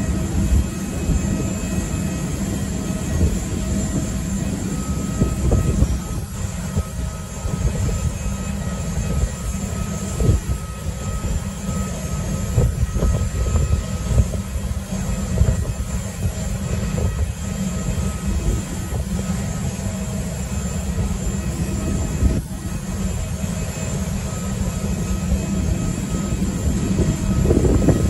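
Steady low rumble of jet aircraft on an airport apron, with faint steady whining tones above it; it swells slightly near the end.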